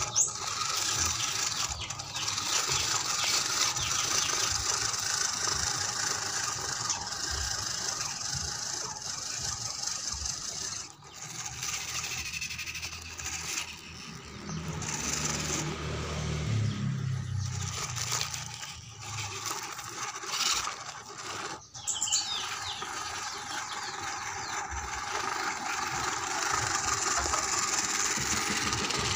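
Small electric motor and gearbox of a homemade RC truck whining steadily as it drives, with rattling and scraping from its tyres and chassis over gravel and rocks. The whine drops out briefly twice, near the middle and about two-thirds of the way through.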